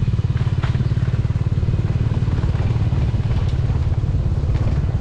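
Small motorcycle engine running steadily at low road speed, heard from the pillion seat, with a few light clicks and rattles as the bike rolls over the rough dirt lane.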